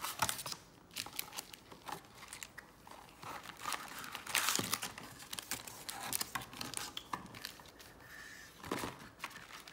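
Plastic wrapping on a trading card hobby box crinkling and tearing as it is opened by hand, in irregular spurts with louder rips about halfway through and near the end.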